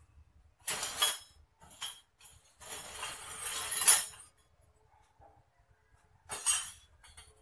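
Short metal cans clinking and scraping against each other and the concrete floor as they are picked up and set down, in a few separate bursts. The longest and loudest scrape comes between about two and four seconds in.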